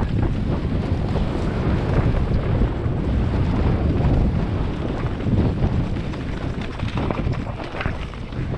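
Wind buffeting a mountain bike's helmet or handlebar camera microphone during a fast downhill run, mixed with the rumble and rattle of the bike over a dirt forest trail.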